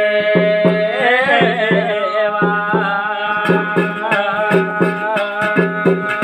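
Garhwali jagar folk music: a singer holds a long note and slides off it about a second in, then a sustained melody carries on over steady drumbeats of about three strokes a second.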